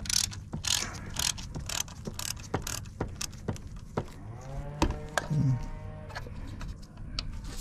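Hand ratchet clicking in short strokes, about two clicks a second, as it backs out the small screws holding an ABS control module to its hydraulic unit. A brief sliding pitched sound comes about four and a half seconds in.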